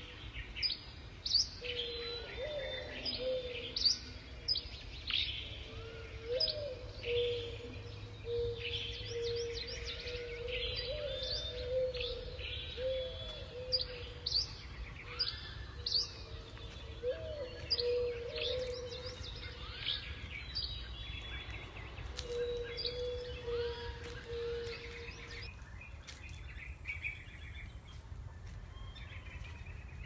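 Morning chorus of several birds singing and calling: sharp, high chirps repeat about once a second for most of the time, with a lower held note running under them that stops near the end, leaving softer calls. A low, steady rumble of background noise runs beneath.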